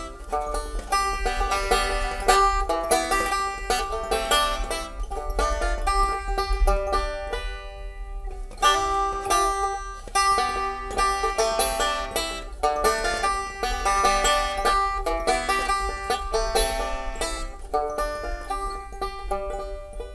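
Banjo picked solo in a quick, steady run of notes, an instrumental break in a song, with a brief lull about eight seconds in.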